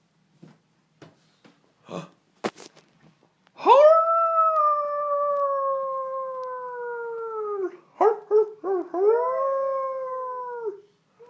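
A toddler howling in imitation of an animal: one long howl of about four seconds that slides slowly down in pitch, then a few short yelps and a second, shorter howl. A few soft knocks and a sharp click come before the howling starts.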